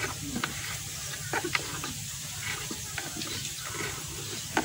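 Irregular small clicks and scratches of hands picking crumbled air-filter foam out of a motorcycle's plastic air cleaner box, over a steady low hum.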